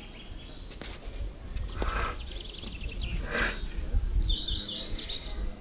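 Small birds chirping and singing, with short repeated trills and a run of falling notes near the end, over a low rumble of wind on the microphone. Two short hissing sounds come about two and three and a half seconds in.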